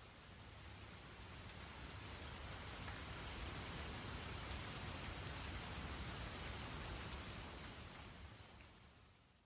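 Faint water ambience, an even rain-like hiss with a low rumble beneath it. It swells over the first few seconds, then fades out to silence near the end.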